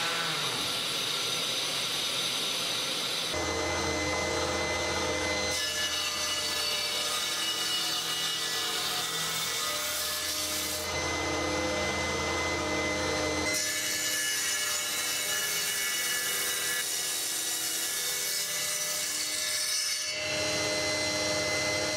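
Woodworking power tools running in turn: a handheld sander on a solid ash cabinet box, then a table saw ripping thin wooden strips against its fence. The steady machine noise changes abruptly several times where the footage is cut.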